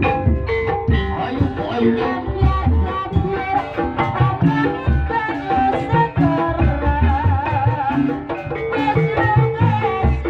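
Live Javanese gamelan music accompanying the dance: metallophone melody over repeated drum strokes, with a wavering held note about seven seconds in.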